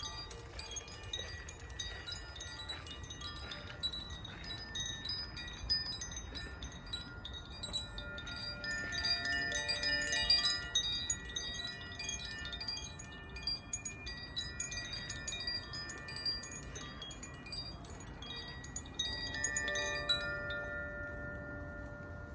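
Zaphir "Sufi" chime ringing continuously: its clapper tinkles against the tuned rods, leaving overlapping sustained tones. It swells about nine seconds in and thins out near the end.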